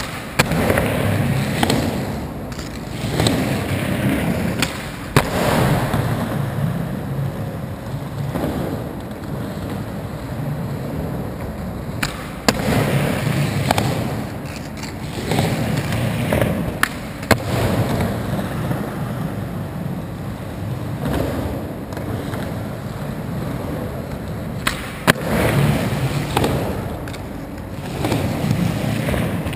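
Skateboard wheels rolling over concrete, swelling and fading as the board rides up and down the ramps, with sharp clacks of the board on the concrete every few seconds as tricks are popped and landed.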